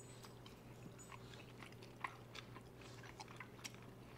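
Faint chewing: scattered small mouth clicks, one slightly louder about two seconds in, over a low steady hum.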